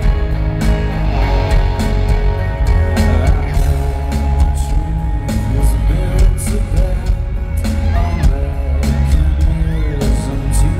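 Live rock band playing loud in an arena: electric guitars, bass and drums with regular drum hits, and a singing voice coming in over them about six seconds in.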